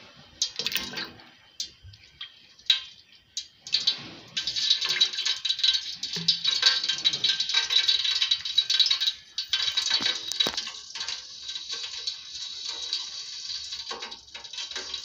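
Vegetable oil heating in a hot stainless steel pot for deep-frying: a few scattered clicks at first, then from about four seconds in a dense, steady crackling sizzle.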